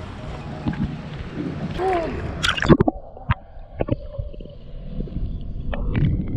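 Wind on the microphone for the first couple of seconds, then a sudden splash. After it, water sloshing and gurgling around an action camera dipped at the waterline, the sound muffled while the camera is under the surface, with a few sharp knocks.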